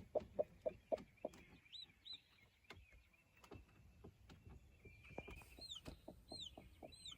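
A hen sitting on her nest clucking softly in a quick, uneven series of short low clucks, while a newly hatched chick peeps from underneath her: high, falling peeps, a pair about two seconds in and three more near the end.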